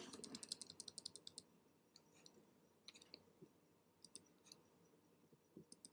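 Faint clicking from working a computer input device while painting digitally: a quick run of small clicks in the first second and a half, then scattered single clicks.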